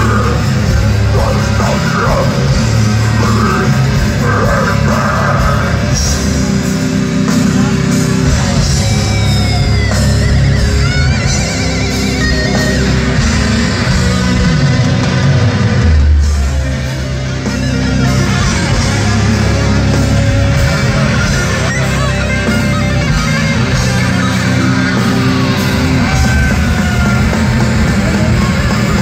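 Death metal band playing live, with heavily distorted guitars, bass and drums pounding continuously, heard from the crowd. A lead guitar slides in pitch about ten seconds in.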